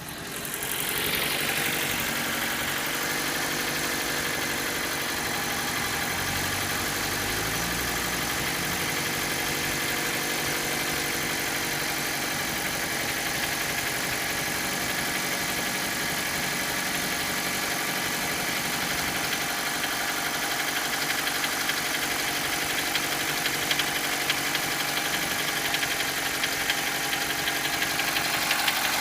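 Mitsubishi Colt engine idling steadily with a knock from inside the engine, heard as a fast, even ticking over the engine note.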